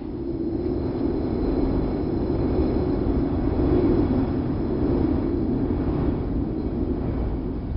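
Wind sound effect: a low, steady rushing of wind that swells and eases slowly.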